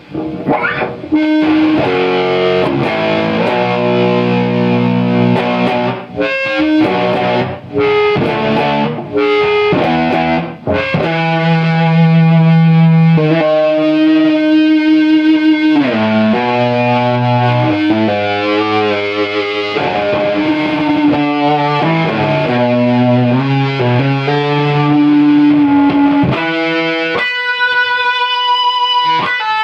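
Electric guitar played through a prototype compressor/fuzz/sustainer circuit: distorted, long-sustaining notes and short riffs, changing pitch every second or so. Near the end it moves up to higher single notes.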